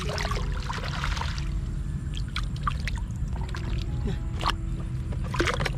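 Shallow water sloshing and splashing in and around a woven bamboo fish-catching basket as fish are picked out of it by hand, with scattered short splashes over a steady low rumble.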